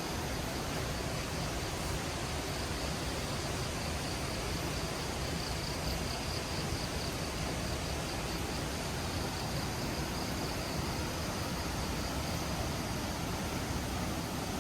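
Steady rushing of a waterfall's falling water, with a high insect trill running over it.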